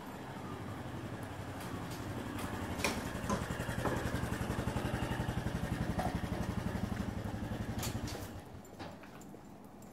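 A motor vehicle's engine running at low revs with a fast, even pulse, growing louder and then fading away about eight seconds in, with a few sharp clicks over it.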